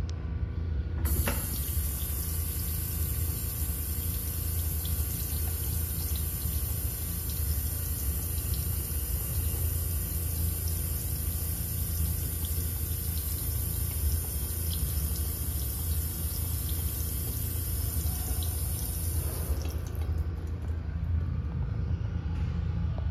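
Restroom sink faucet running a thin stream into a ceramic basin. The water comes on suddenly about a second in, runs steadily, and shuts off a few seconds before the end, all over a steady low hum.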